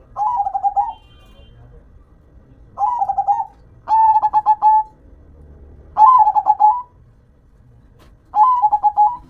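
Zebra dove (perkutut) cooing: five short phrases, each a rapid run of staccato notes lasting under a second, with pauses between them.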